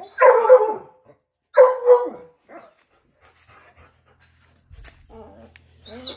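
Hound dogs barking: two loud, drawn-out barks in the first two seconds, then another starting near the end.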